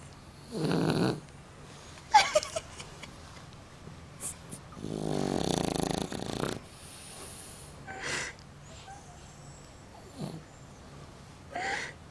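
Shar-pei dog snoring while asleep: rattling snores on the in-breath, one short and one long of nearly two seconds, with snorts and short whistling breaths in between.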